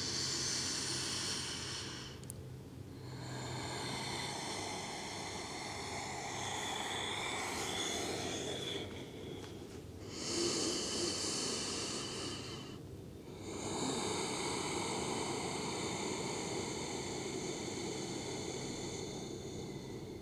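A woman's slow, deep breathing: four long, drawn-out breaths, each several seconds, with brief pauses between them.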